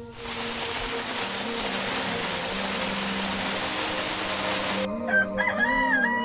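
A loud, steady hiss for about four and a half seconds, then a rooster crowing near the end.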